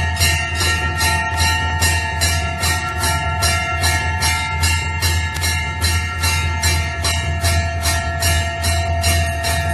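Temple bell rung over and over in an even rhythm, about three strikes a second, its metallic ringing tones carrying on between strikes, over a steady low drone.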